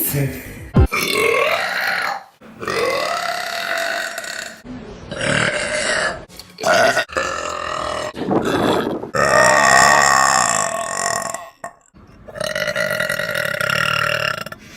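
Women burping: about seven long, loud burps in quick succession, most lasting around two seconds, each with a wavering pitch and abrupt breaks between them.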